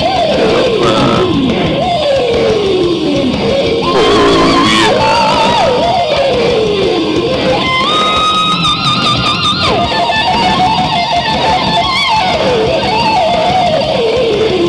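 Rock music led by electric guitar: a lead line slides and bends in pitch over a dense band mix, holding notes with vibrato about halfway through.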